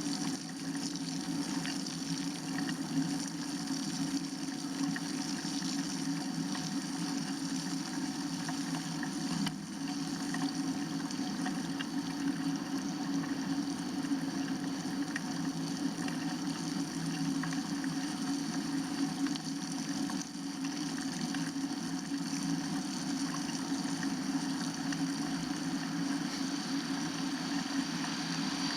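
Steady rushing noise of a bicycle on the move, from wind and tyres, without a break.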